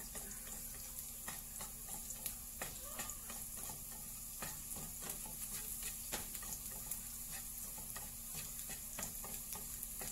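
Chopped garlic sizzling in hot oil in a nonstick frying pan, a steady hiss, while a spatula stirs it, scraping and tapping against the pan at irregular moments.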